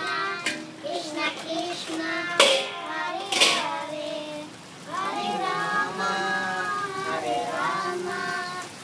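Children singing a held, wavering melody, with two short sharp noises about two and a half and three and a half seconds in.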